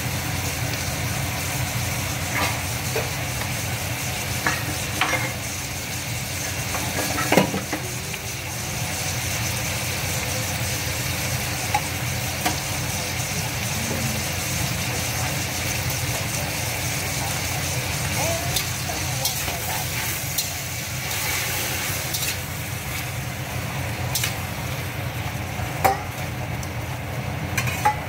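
Shrimp stir-frying in a hot pan: steady sizzling, with a few sharp knocks of a utensil against the pan over a low steady hum.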